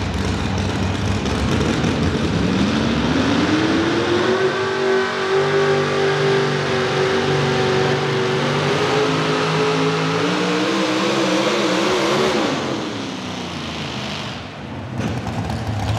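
Modified pickup pulling truck's engine under full load dragging a weight-transfer sled: the pitch climbs over a couple of seconds, holds high while wavering a little, then falls away about twelve and a half seconds in.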